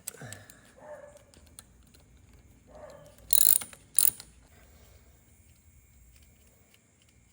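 Hand ratchet clicking in short runs while the bolts of a rebuilt two-stroke top end are tightened in a star pattern, with two louder, sharp metallic bursts about three and four seconds in.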